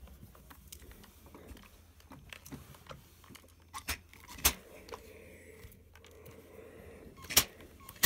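Steam iron pressed and slid over cotton calico to iron a seam open, with soft fabric rustle and a few sharp knocks, the loudest about four and a half and again about seven and a half seconds in.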